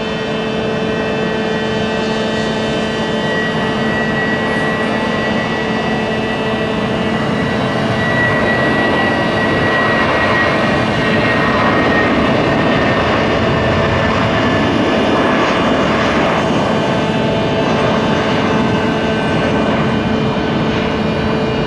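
Jet engines of an Airbus A319 airliner at takeoff power during the takeoff roll and climb-out. The roar grows over the first several seconds, then holds loud and steady.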